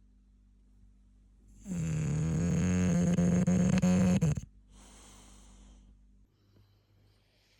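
English bulldog snoring in its sleep. About a second and a half in comes one long, loud, rattling snore of about three seconds that cuts off sharply, followed by a softer, airy breath.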